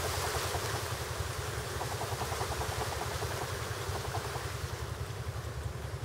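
Wind buffeting the microphone: a steady low rumble under a high hiss. Faint trains of rapid chirps come through in the background.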